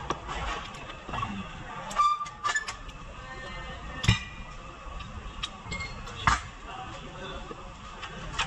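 Metal clinks and knocks of hand tools and suspension parts being handled: a few sharp strikes, the loudest about four seconds in, with smaller ones around two and six seconds.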